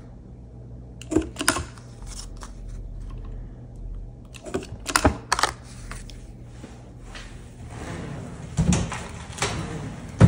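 Handheld hole punch snapping through card stock at the corners of a card panel: two sharp clicks about a second in and three more around five seconds in. Duller knocks follow near the end.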